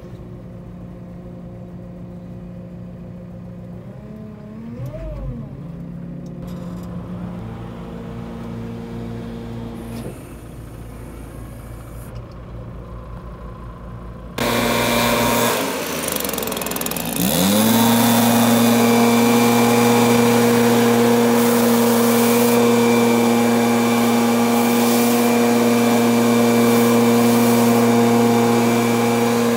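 Diesel engine idling, heard from inside a telehandler cab. About halfway through, a loud rush starts, and then a backpack leaf blower revs up and holds a steady full-throttle drone as it blows sawdust off a milled slab.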